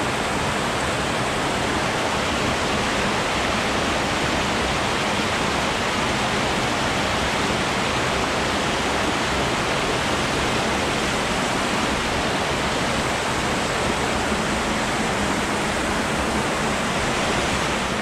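Small mountain stream rushing steadily over a rocky cascade into a pool, a loud, even roar of water.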